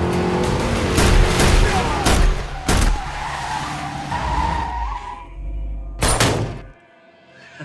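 Car engine running hard and tires skidding, with a squeal that rises in pitch through the middle and a few sharp bangs. About a second before the end the sound drops away almost to silence.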